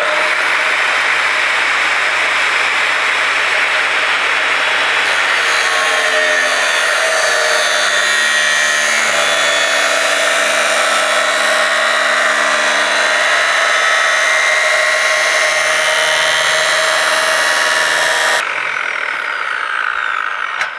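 Makita angle grinder with a 230 mm cutting disc cutting through a workpiece: a loud, steady abrasive grinding whine. About two seconds before the end the sound drops sharply as the cut finishes.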